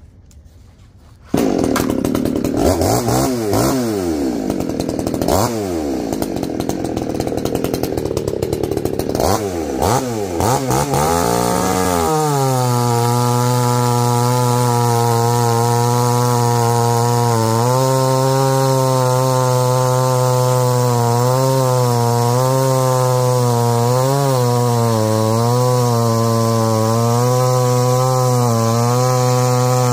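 Supmix two-stroke chainsaw, fitted with a 48 mm big-bore kit (61.5 cc), starts about a second and a half in, is revved up and down several times, then is held at full throttle cutting through a log of firewood, its pitch dipping slightly now and then as the chain bites. It still runs its original carburettor, which the owner thinks may be too small for the bigger cylinder.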